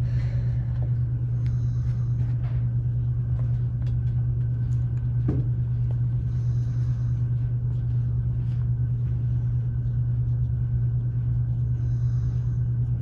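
Steady low hum with a sharper knock about five seconds in.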